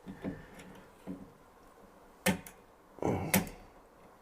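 Impact punch-down tool snapping wires down into a 110 block: two sharp clicks about a second apart, with fainter clicks and handling before them.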